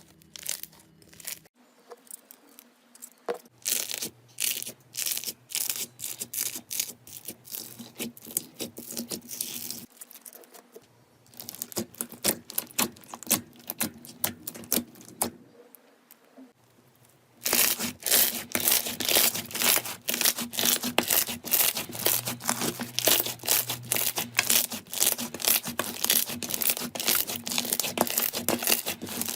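Hands squeezing, stretching and pressing slime close to the microphone, making dense runs of crackles and little pops. Brief pauses break it up, and the crackling becomes louder and denser about two-thirds of the way through.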